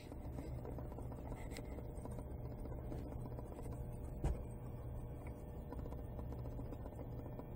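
Steady low room hum with a few faint ticks and a single soft thump about four seconds in.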